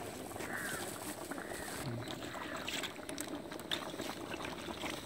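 Steady outdoor background noise with three short arching chirps in the first two and a half seconds and a few light clicks.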